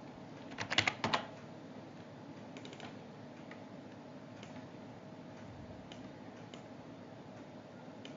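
Computer keyboard typing: a quick run of four or five keystrokes about a second in, followed by a few faint single clicks, over a faint steady background hum.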